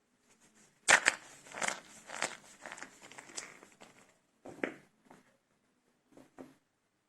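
Dry soap cups made with starch being broken and crumbled by hand: a sharp crack about a second in, then about three seconds of crunching and crackling, followed by a few shorter, separate crunches.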